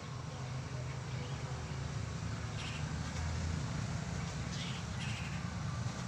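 Low, steady hum of a vehicle on the road, growing slightly louder as it approaches. A few short bird calls sound over it about halfway through and near the end.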